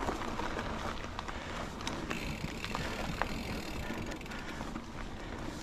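Mountain bike climbing a dirt singletrack: tyres rolling over packed dirt and small stones in a steady rumbling hiss, with scattered short clicks and ticks from the bike and trail.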